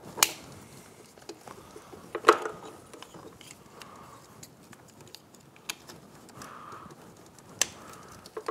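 Light clicks and rustles of engine wiring and plastic connectors being handled and rerouted by hand, with a few sharper clicks spread through.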